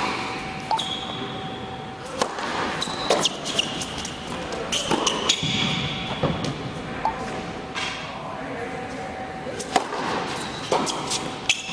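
Tennis rally on an indoor hard court: irregular sharp pops of the ball off racket strings and bounces on the court, with short high squeaks of tennis shoes, echoing in a large hall.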